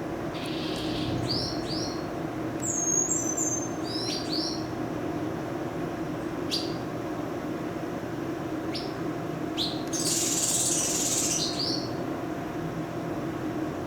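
Eastern paradise whydahs chirping: short, high, scattered chirps over a steady low hum, with a brief hiss about ten seconds in.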